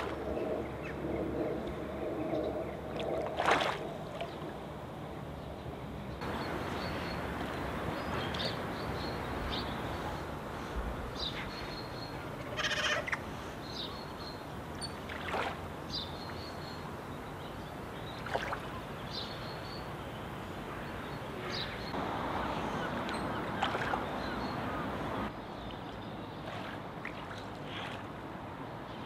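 Otters splashing and swimming in shallow lake water among floating twigs, over a steady wash of water. A low pitched sound runs through the first few seconds, followed by scattered short high-pitched chirps and a few sharp clicks, with a louder stretch of splashing near the end.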